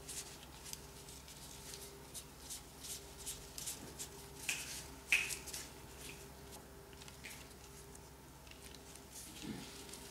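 Disposable plastic gloves crinkling and rustling as gloved hands roll a ball of soft cookie dough, a quiet run of short, irregular crackles with a sharper one about five seconds in.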